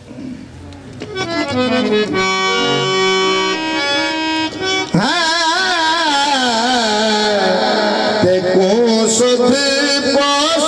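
Harmonium playing held notes, joined about halfway through by a man's voice singing a wavering, ornamented devotional line, with tabla accompaniment.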